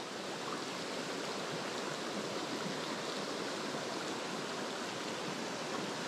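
Shallow mountain stream rushing over rocks and through riffles: a steady wash of running water.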